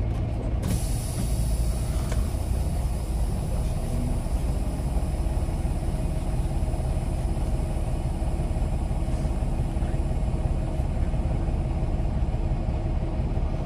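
Semi truck's diesel engine idling steadily, heard from inside the cab, with a steady hiss joining about a second in.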